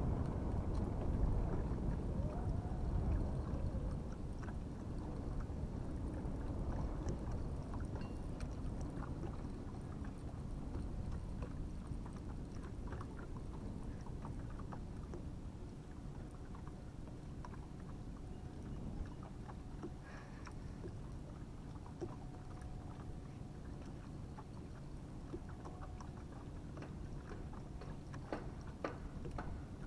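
Low, steady rumble of a boat on the water, loudest in the first few seconds and then easing to a lower steady level, with scattered light ticks and taps.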